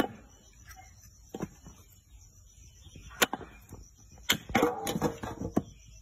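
A cleaver chops through a raw rack of beef ribs onto a wooden stump block. There are a few separate sharp chops, the crispest about three seconds in, then a quicker run of strikes near the end.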